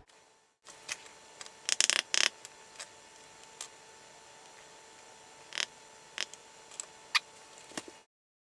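A series of sharp clicks and taps, a quick cluster of louder ones about two seconds in and single ones later, over a faint steady hum; the sound cuts out abruptly near the end.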